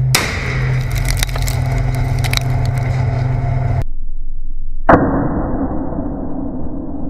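Tank engine running with a steady low hum under irregular sharp cracks of gunfire. After a brief dropout, a single loud blast goes off close to the tank about five seconds in, followed by a dull rumble that fades.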